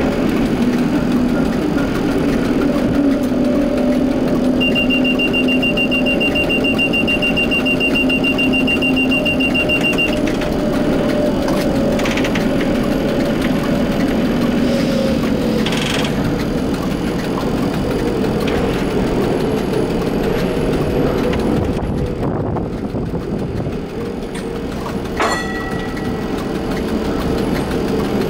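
1960 Bern Standard streetcar running along the rails, its motors giving a steady hum that falls slightly in pitch about halfway through. A thin high whistle holds for about five seconds near the start, and a sharp clank with a short ring comes near the end.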